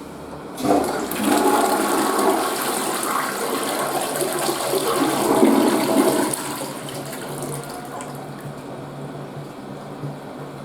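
Western-style toilet flushing: a loud rush of water starts suddenly under a second in and lasts about six seconds, then drops to a quieter steady run of water.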